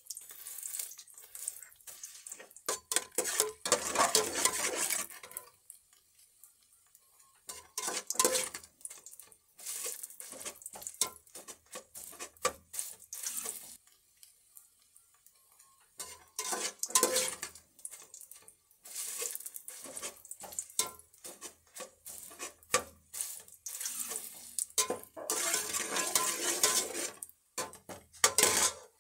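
Kitchen pots and utensils clattering and scraping, with splashes of water, coming in bursts with short pauses between them.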